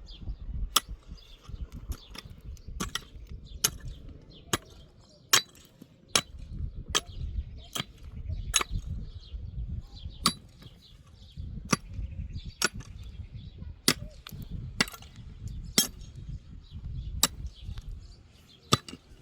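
Repeated sharp knocks of a tool striking a hard material, about one a second at an uneven pace, over a low rumble.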